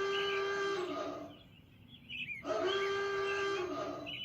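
Two long, steady alarm-horn tones, each about a second and a half with a brief gap between them, sounding as an emergency alert signal. Small bird chirps sound faintly in the background.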